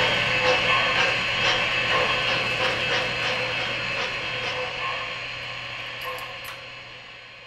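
O-gauge three-rail model freight train rolling past: a steady rattling rumble of wheels on the track with regular clicks, about two a second, over a steady low hum, fading out gradually.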